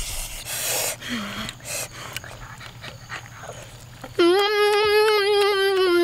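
A few short noisy rustles and squelches. Then, about four seconds in, a boy lets out a long, loud, held 'oooh' through pursed lips.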